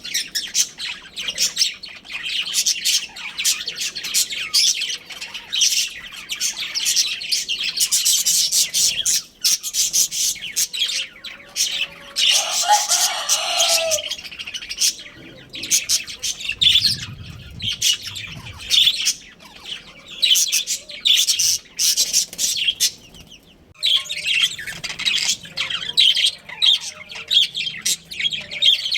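Several budgerigars chattering: a dense, continuous run of fast, high chirps and warbles, broken only by a couple of brief pauses.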